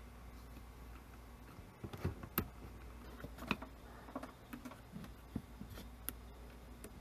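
Scattered light clicks and taps of fingers handling the plastic and metal parts of a cassette recorder's tape mechanism while a rubber belt is worked onto the flywheel and pulleys. The sharpest clicks come about two seconds in and again around three and a half seconds, over a low steady hum.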